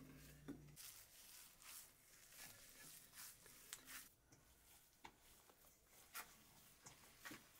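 Near silence, with faint scattered clicks and rustles of handling, after a low hum that stops within the first second.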